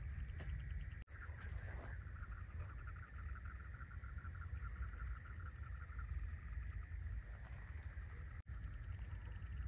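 Night chorus of frogs calling in rapid pulsed trains, over insects chirping at an even rate and a steady high-pitched insect whine, with a low rumble underneath.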